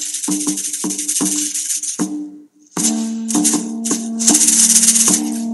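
Background music with a steady rattling percussion beat, about three strokes a second, over held low tones; it drops out briefly about halfway through, then comes back.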